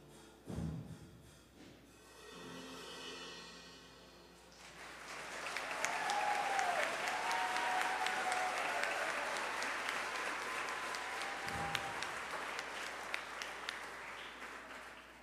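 A school band's piece ends with a drum hit and a last held chord, then the audience applauds for about ten seconds, with a few whoops near the start of the applause.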